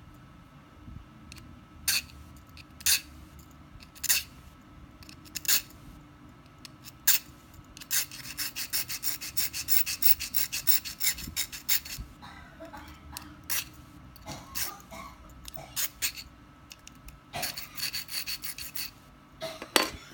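Flat metal hand file rasping against a steel wire fishing leader held in pliers. Single strokes come about a second apart at first, then quick runs of several short strokes a second a little past the middle and again near the end.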